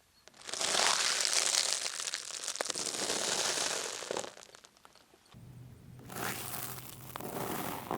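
Crunching and crackling of crunchy objects being crushed under a car tyre. The first burst lasts about three and a half seconds, and a second one comes near the end over a steady low hum.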